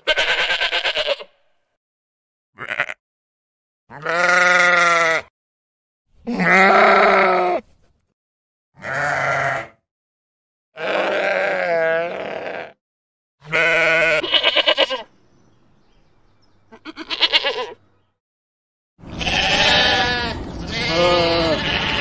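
Sheep bleating: about ten separate bleats of up to a second or two each, with silent gaps between them. Near the end the bleats come over a steady background hiss.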